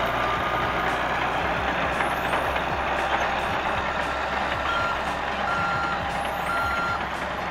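Sound-effect forklift: a steady motor noise, and from about halfway in, reversing beeps, a little under one a second, as the forklift backs away from the load.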